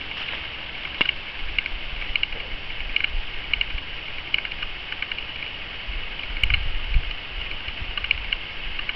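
Outdoor ambience: a steady high hiss with short, irregular high ticks, and a low rumble of wind or camera handling on the microphone that swells about two-thirds of the way in.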